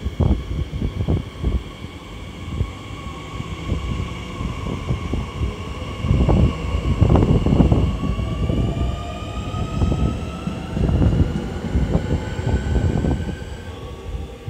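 SNCF Z 50000 (Francilien) electric multiple unit pulling away: its traction motors' whine climbs slowly in pitch as it accelerates, over an irregular low rumble that is loudest about halfway through.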